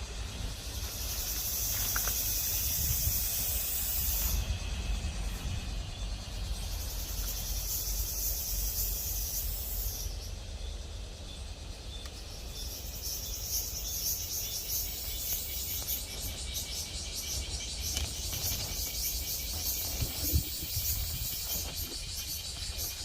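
High-pitched insect song in bouts: a loud buzz that stops about four seconds in, another from about six to ten seconds, then a fast pulsing trill from about thirteen seconds on, over a low rumble.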